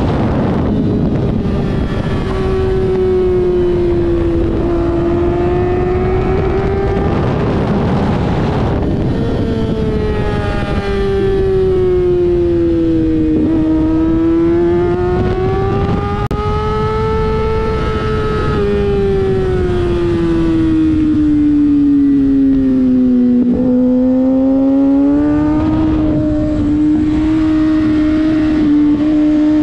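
Kawasaki ZX-6R 636 inline-four sportbike engine at high revs on track, its pitch sliding down and back up several times as the rider works the throttle and gears through the corners, over heavy wind rush at the helmet.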